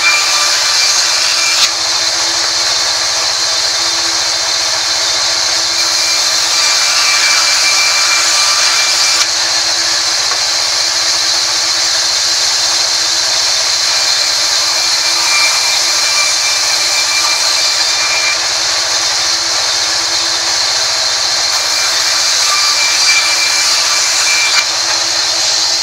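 Sawmill band saw running and cutting through a mahogany board: a loud, steady hiss over a constant hum, with a faint whistle that comes and goes.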